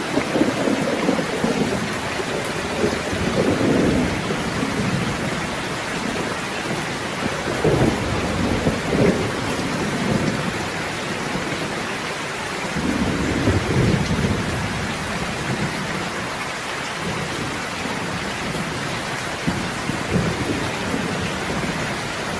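Steady heavy rain with thunder rumbling low several times, swelling and fading every few seconds.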